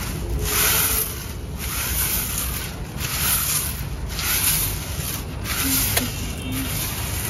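Long-handled bristle broom sweeping bare dirt ground: dry, scratchy swishing strokes, about one a second, over a steady low rumble.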